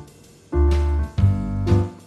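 Background music: sustained chords over a deep bass, entering about half a second in, changing to a new chord just past one second, and breaking off near the end.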